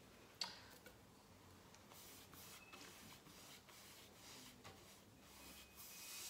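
Faint, repeated swishes of a paintbrush drawing paint along the bottom rail of a hand-painted wooden kitchen island, with one sharp click about half a second in.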